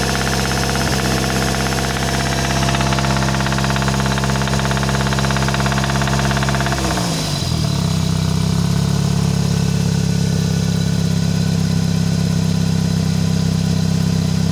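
Toyota 4A-FE four-cylinder petrol engine held at raised revs with a knock, then the revs fall back to idle about halfway through and it runs steadily there. The knock comes when the revs are raised and goes at idle and as the revs drop, which points to a mechanical fault the owner is still trying to find.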